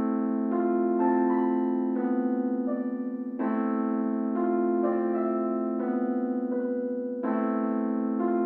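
Electric-piano-like keyboard playing slow, sustained chords, a new chord about every second, in a calm instrumental introduction.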